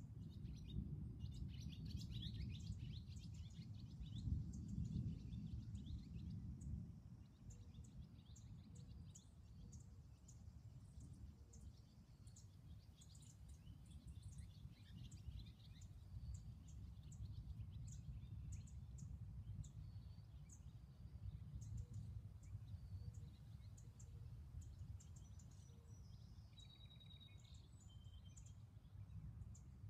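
Small birds chirping and calling now and then, with short high chirps and a few brief whistled notes, over a faint low rumble that is a little louder in the first several seconds.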